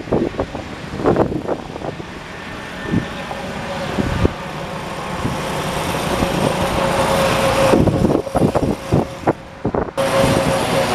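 1979 John Deere 214 lawn tractor's single-cylinder Kohler engine running as the tractor is driven along the driveway, growing louder from about four seconds in as it comes closer. Wind buffets the microphone with a crackle throughout.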